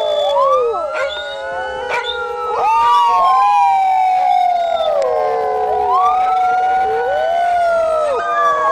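An emergency siren wailing in slow rises and long falls, with several canines howling along in overlapping rising-and-falling howls.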